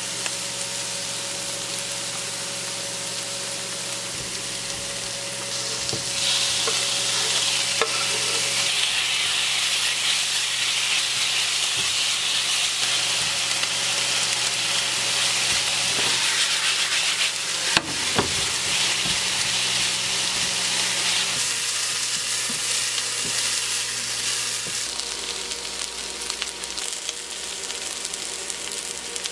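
Diced potato, carrot and chicken sizzling as they fry in a pan and are stirred with a spoon. The sizzle grows louder about six seconds in and eases off after about twenty seconds, with a single knock of the spoon against the pan a little past halfway.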